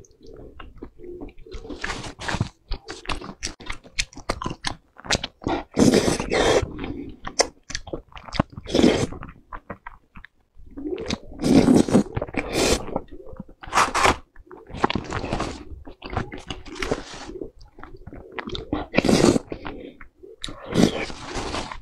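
Close-miked mukbang eating: loud, irregular wet chewing, smacking and slurping of food coated in thick sauce, with crunchy bites.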